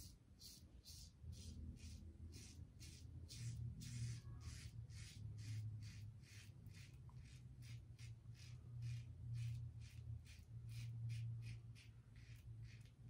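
Copper Aylsworth Kopparkant safety razor scraping through beard stubble under lather in short, quick strokes, about two to three a second.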